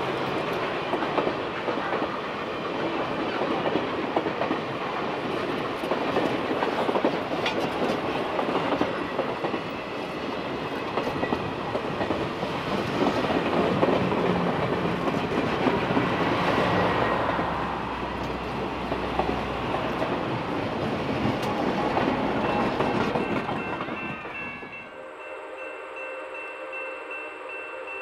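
Passenger coaches of a steam-hauled excursion train rolling past at close range, wheels clattering over the rail joints. About 25 seconds in, the sound drops suddenly to a much quieter background with faint steady tones.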